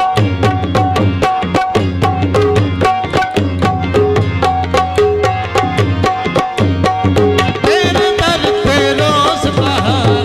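Dhamal music played live on drums and harmonium: fast, evenly driving drum strokes, about four or five a second, under short held harmonium notes. A wavering melody line joins near the end.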